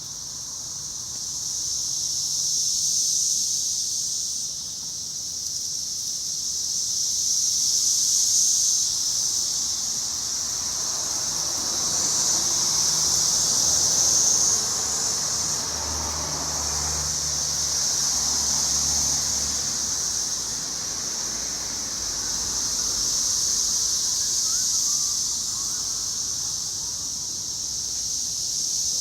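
Chorus of Brood X periodical cicadas: a dense, continuous high-pitched buzz that swells and fades in waves about every five seconds.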